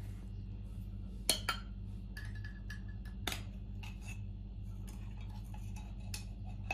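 A metal spoon clinking lightly against glass kitchen bowls: two clinks close together about a second in, a brief ring after them, another clink a couple of seconds later and a few faint taps near the end. A steady low hum runs underneath.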